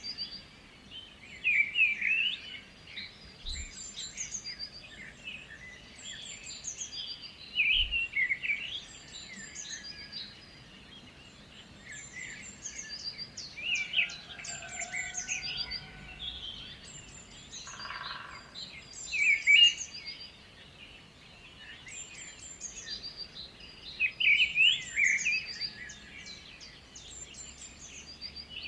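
Several birds chirping and singing, with a short, high song phrase repeating every couple of seconds over busier chirps.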